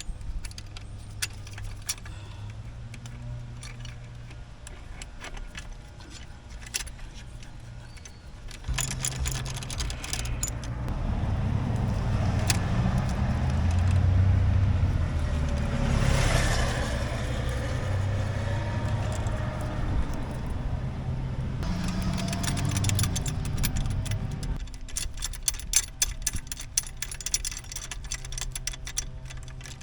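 Scattered metallic clinks and clicks of hand tools working on bolts in a car's engine bay. Under them, a low rumble swells up through the middle and fades away again.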